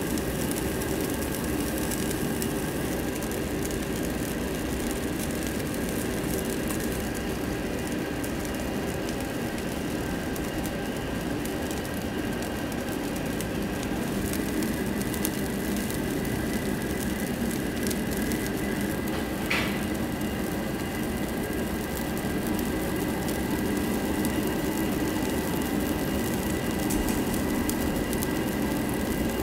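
Steady whooshing roar of restaurant ventilation and charcoal-grill noise, with meat fat crackling and sizzling over the coals. A brief high squeak comes about twenty seconds in.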